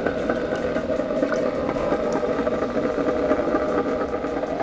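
Cuisinart ice cream maker's motor running with a steady hum, turning the freezer bowl against the paddle as the liquid ice cream base starts to churn.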